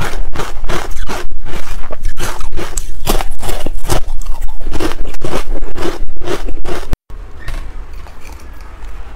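Ice coated in matcha powder being bitten and chewed, a run of loud, rapid crunches. The crunching cuts off abruptly about seven seconds in, leaving only faint, quiet noise.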